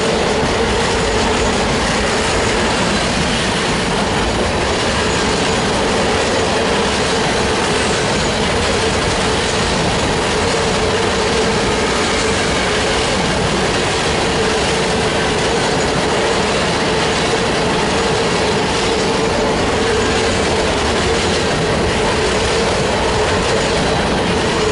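Union Pacific freight cars, boxcars and covered hoppers, rolling steadily past on steel rails with a continuous rumble and wheel noise. A steady high note sounds over it throughout.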